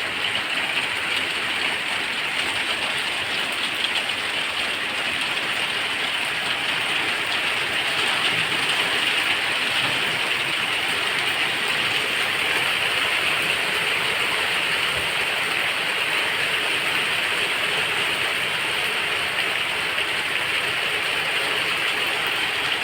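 Heavy rain pouring down steadily, a dense even hiss of downpour.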